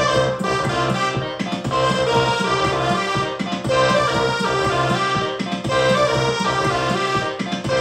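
Layered synthesizer music from a stack of Korg Volca synths, their step sequencers looping several parts at once: sustained pitched notes over a repeating pattern.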